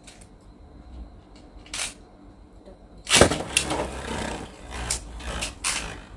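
A Beyblade spinning top launched into a clear plastic stadium: a single click, then a sudden loud start about three seconds in, followed by continuing noise of the top spinning on the plastic floor with a few sharper clicks.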